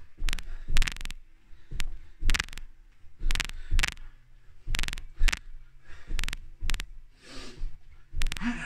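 Trainer-clad feet landing on a carpeted floor during jump squats: an uneven run of dull thuds, one or two every second, often in pairs about half a second apart.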